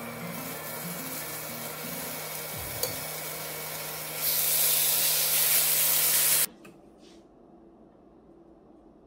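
Pork belly strips sizzling on a hot induction grill plate as they are laid down with tongs; the sizzle grows louder about four seconds in as another strip goes onto the plate. It cuts off abruptly a little over six seconds in, leaving only faint background noise.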